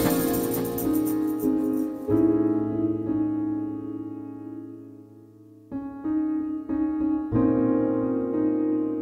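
Background music: piano chords, each held and left to fade, with new chords struck about two seconds in and again near six and seven seconds.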